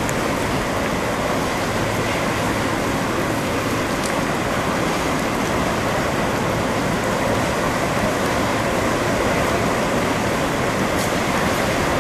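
Hurricane wind and storm surf, a steady, even rush of noise with no let-up.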